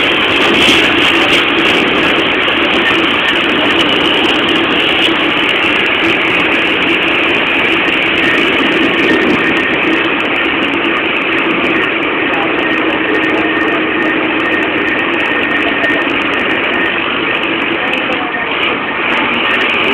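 Steady engine and road noise of a moving vehicle, with a constant drone running under it.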